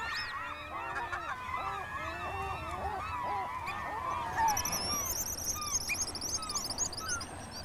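Glaucous-winged gull colony calling, many overlapping calls at once. About halfway through, high-pitched rapid whistled trills of pigeon guillemots take over.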